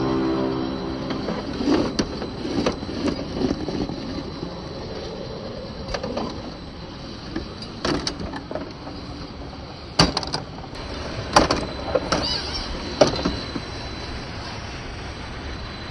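Axial SCX10 II RC crawler's electric motor and geartrain grinding along as it crawls over rock, with several sharp knocks and scrapes as the tyres and chassis strike the stone. Background music fades out about a second in.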